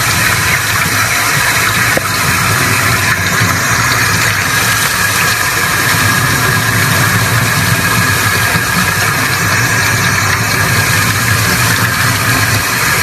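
Loud, steady machine noise, like a motor or engine running, with a faint steady tone and no change in pitch or level.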